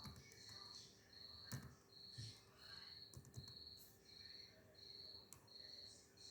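Faint cricket chirping, a high steady chirp repeating about twice a second, with a few faint clicks.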